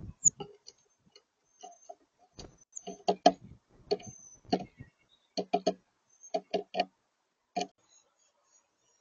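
A small bird pecking at seed on a feeder: a string of sharp taps, several in quick runs of two or three.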